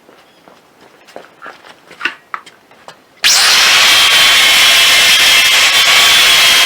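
A few light handling clicks and taps, then about three seconds in a handheld power sander switches on and runs steadily at high speed with a high whine.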